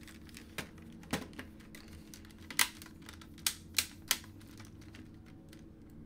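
Several sharp, irregular plastic clicks and taps as the laptop's plastic case and bottom cover are handled and pressed into place, over a faint steady low hum.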